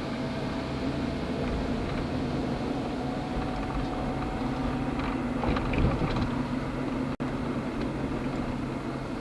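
Steady running hum and faint whine of a vehicle travelling along streetcar track, heard from inside. A few knocks come a little past halfway, and the sound cuts out for an instant about seven seconds in.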